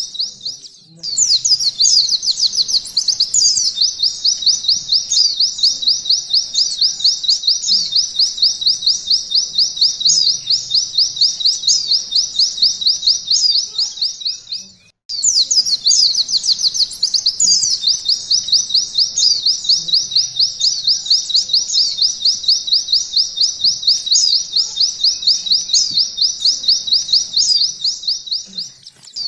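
White-eye (pleci) singing a long, fast, canary-style trill of rapidly repeated high notes, the 'nembak ngalun' song played to train caged birds. It sings two long unbroken bouts, with a brief silent break about halfway through.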